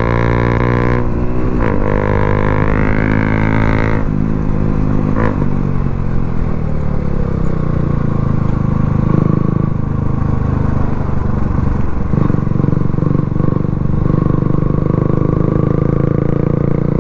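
Motorcycle with an aftermarket Akrapovič exhaust running while being ridden: a steady pitched engine drone that shifts in pitch in the first few seconds, then a denser low rumble.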